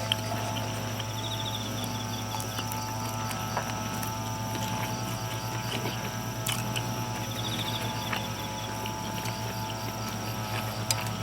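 Insects trilling outdoors: short, finely pulsed trills that recur every few seconds, over a steady low hum.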